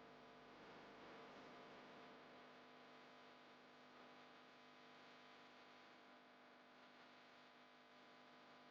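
Near silence: a faint steady hum and hiss of room tone.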